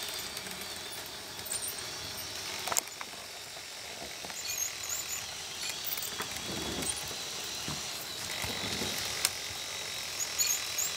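Motors and gear trains of a Lego Mindstorms robot dog whirring as it moves its legs, with a couple of sharp clicks.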